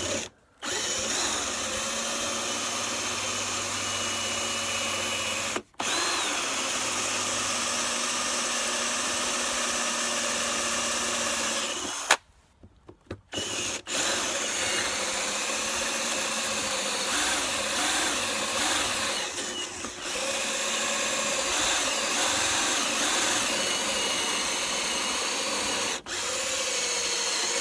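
Power drill boring into the edge of a wooden door to cut out the mortise for a sash lock. It runs steadily in three long stretches, stopping briefly about six seconds in, for a second or so around twelve seconds, and again near the end.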